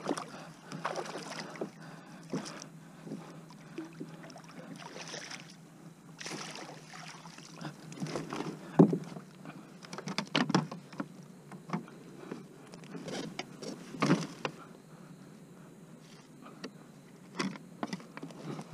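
Water splashing beside a plastic kayak as a hooked striped bass is brought in. Then come irregular knocks and rattles of gear and a plastic measuring board against the kayak's hull, the sharpest a single knock a little before halfway.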